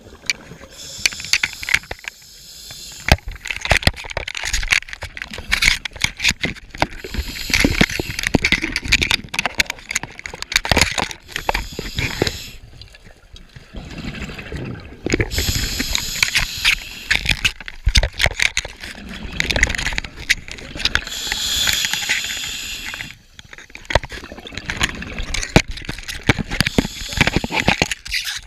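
Scuba diver breathing through a regulator underwater, about four breaths. Each breath is a hiss on the inhale, followed by several seconds of bubbling and gurgling as the exhaled air leaves the regulator.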